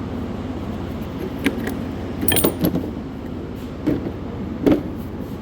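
A few sharp metallic clinks and knocks, like tools or parts being handled and set down, over a steady low background hum.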